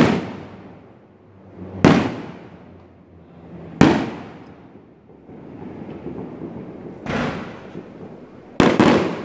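Aerial firework shells bursting overhead: a series of sharp booms about two seconds apart, each trailing off in a rolling echo, with a gap in the middle and two bangs in quick succession near the end.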